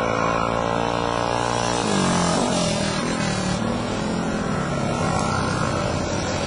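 Several pull-start mini bikes racing past, their small engines revving. A single steady engine note gives way at about two seconds to several engine notes rising and falling together as the pack goes by.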